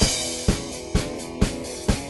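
Background music with drums: a quick drum fill runs into a cymbal crash at the start, then a steady beat of about two hits a second under held chords.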